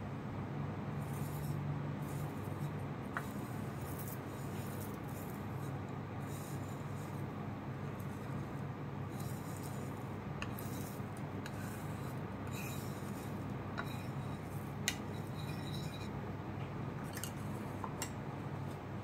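Dry Bi Tan Floating Snow jasmine green tea leaves rustling and scraping on a bamboo tea scoop as a bamboo pick pushes them into a porcelain gaiwan, in scattered light scrapes and ticks. There is one sharp tick about three quarters of the way through, over a steady low hum.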